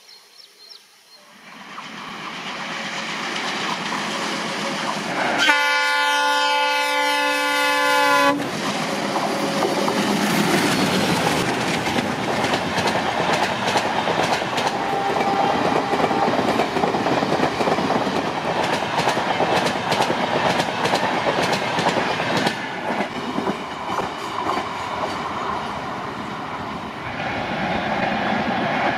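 WDM3D ALCO diesel locomotive approaching and sounding its multi-tone horn for about three seconds, then the train of ICF coaches passing close, wheels clattering rhythmically over the rail joints, fading near the end.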